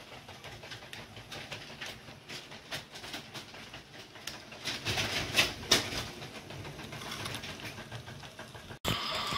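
HO scale model diesel locomotive and freight car rolling along sectional track, with light irregular clicking of the wheels over the rail joints, loudest about five seconds in as the locomotive passes close. Near the end the sound changes abruptly to a steady hiss.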